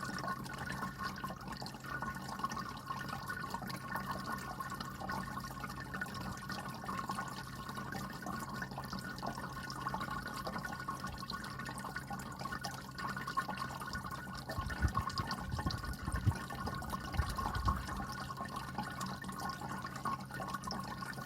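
Small pet water fountain running: its pump hums steadily while water trickles and drips into the bowl. A few soft low thumps come in about two-thirds of the way through.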